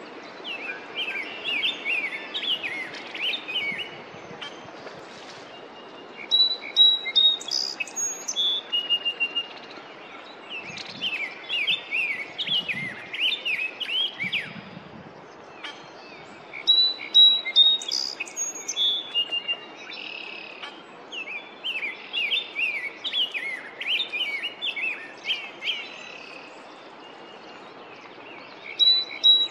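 Male rose-breasted grosbeak singing: bouts of quick warbled phrases a few seconds long, with short pauses between, over a steady faint hiss of outdoor background.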